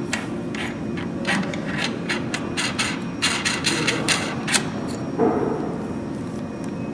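Steady low machine hum under a run of light clicks and taps, about a dozen in three seconds, then a single louder knock about five seconds in.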